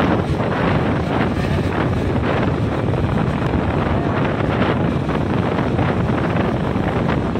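Steady wind rush and buffeting on the microphone of a KTM 250 motorcycle riding at speed, with the bike's running and road noise underneath.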